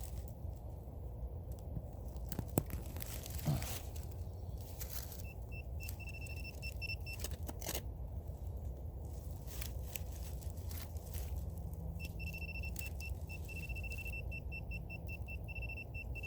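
Metal detector sounding a steady high beep over a buried metal target, once for about two seconds and again for about four seconds near the end, where it breaks into quick pulses. Scattered clicks and scrapes of digging in rocky ground come between the beeps.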